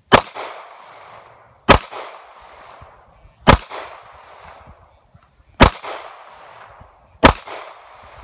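Five single pistol shots from a Sig Sauer P238 .380 ACP, fired at a slow pace about one and a half to two seconds apart, each sharp crack trailing off in a short echo.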